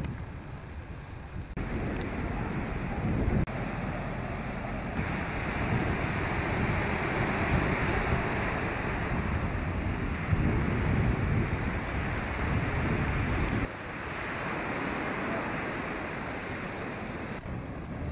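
Wind buffeting the microphone over sea surf washing onto a sandy beach: a steady rushing noise with a gusty low rumble. The sound changes suddenly several times.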